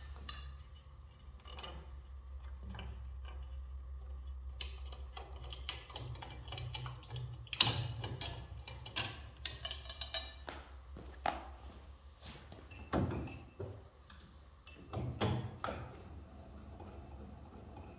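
Scattered clicks, clunks and scrapes of a woodworking shaper's fence and its clamping lever being loosened and moved by hand, over a low steady hum.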